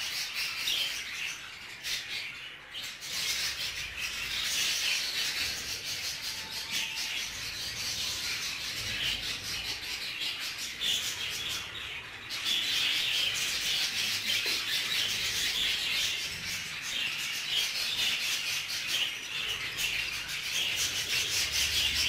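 A large flock of budgerigars chattering and warbling without a break, a dense high twittering that grows a little louder about halfway through.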